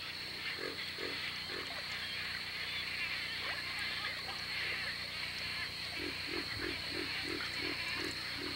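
Short, low animal calls: three about a second into the sound, then an even run of about eight, roughly three a second, near the end, over a steady high hiss.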